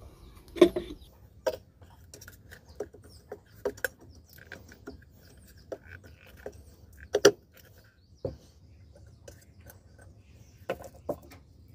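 Irregular metallic clicks and knocks of water pump parts being handled while the impeller is fitted back onto the motor shaft. The two loudest knocks come about half a second in and about seven seconds in.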